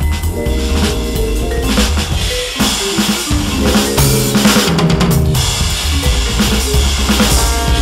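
Roland V-Drums electronic drum kit played in a four-beat jazz swing, its module's kick, snare and cymbal sounds heard over a sequenced backing of bass and chords.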